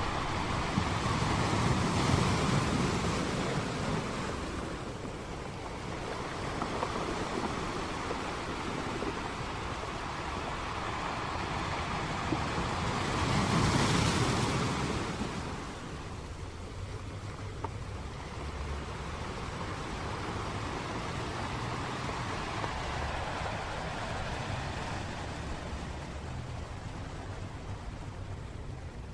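Sea waves washing onto a sandy beach, a steady rush of surf with wind on the microphone, swelling louder about two seconds in and again near the middle as waves break.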